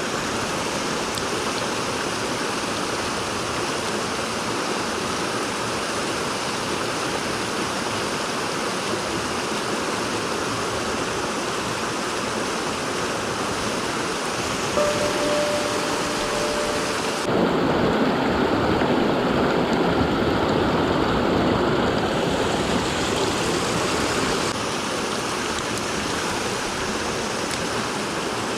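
Mountain stream water rushing steadily. The rush grows louder and fuller for several seconds a little past the middle, and a brief faint tone sounds just before that.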